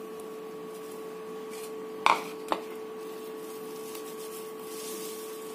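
Soft handling of a thin cotton towel as it is twisted and squeezed around grated cassava to wring out its water, with two short sharp knocks about two seconds in, over a steady faint hum.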